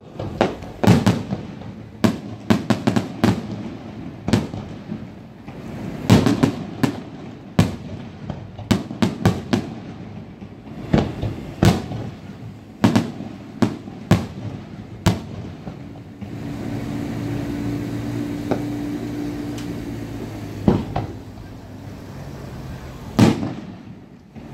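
Aerial fireworks bursting: a quick run of sharp bangs and crackles over the first two-thirds, then a lull filled by a steady low hum, and one more loud bang near the end.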